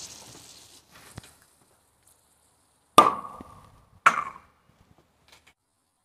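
Film-canister rocket of baking soda and vinegar under pressure: a faint fizz at first, then about three seconds in a sharp pop, and a second sharp knock about a second later. Each one rings briefly on the glass tabletop.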